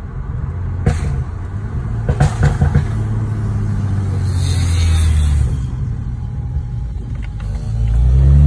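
BMW N55 turbocharged inline-six running under load while driving, heard from inside the cabin, with a few sharp exhaust pops about one and two seconds in, the crackle of its MHD Stage 2+ burble tune; the revs rise again near the end.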